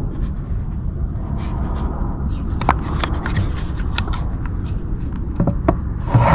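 Sharp plastic clicks and knocks, several in a row from about the middle on, as caster wheels are pushed into the sockets on the base of a plastic shop-vac drum, over a steady low rumble.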